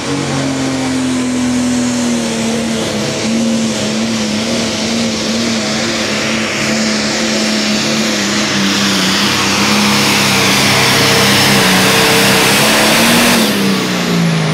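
Pulling tractor's engine at full throttle under heavy sled load: one steady high engine note that sags slowly in pitch and grows louder as the tractor comes closer, then drops away near the end as the throttle comes off.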